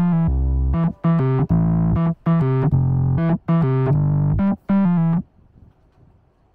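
Background piano music: a run of short chords that stops about five seconds in.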